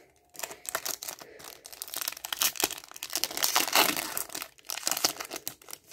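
Foil wrapper of a Yu-Gi-Oh booster pack crinkling and tearing as it is pulled open by hand, a dense crackle that starts about a third of a second in.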